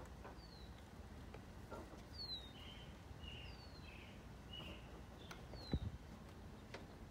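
A bird calling repeatedly, short falling chirps alternating with brief higher notes, over a quiet outdoor background, with a couple of faint knocks near the end.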